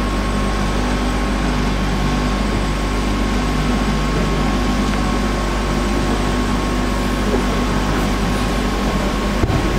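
Freight aerial tramway's station machinery running: a steady electric hum with a high, even whine. There is one short knock near the end.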